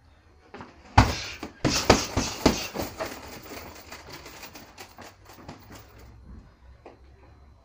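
Boxing gloves punching a hanging heavy bag: a quick flurry of about six hard thuds starting about a second in, then a run of lighter, quicker hits that fade away.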